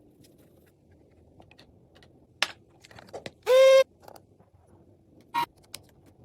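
A few sharp clicks and taps, with one loud, short, steady high-pitched squeak or beep about three and a half seconds in that lasts about a third of a second.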